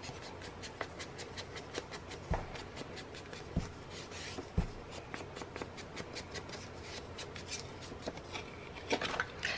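Ink blending tool with a foam pad dabbed on a Distress Oxide ink pad and rubbed along the edge of a cardstock strip: light, scratchy rubbing, with a few soft taps.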